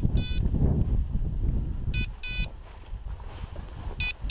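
Electronic beeper collar on a hunting dog sounding double beeps, one pair about every two seconds, three pairs in all. Underneath is a low rush of wind and grass brushing against the microphone.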